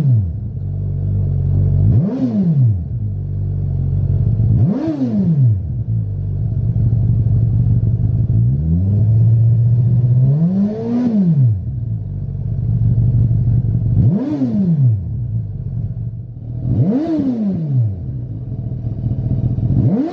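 Suzuki GSX-S1000's inline-four engine breathing through a Lextek XP13C aftermarket silencer, idling between quick throttle blips. The engine revs up sharply and drops straight back to idle about every two to three seconds. The blip around the middle builds more slowly and is held a little longer.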